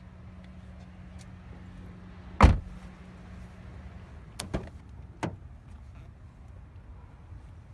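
A car door shuts with one heavy thump, followed by two lighter clicks a couple of seconds later, over a steady low hum.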